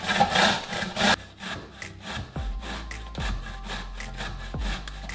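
Zucchini being grated on the coarse side of a stainless steel box grater: repeated rasping strokes, loudest in the first second. Background music is underneath from about two seconds in.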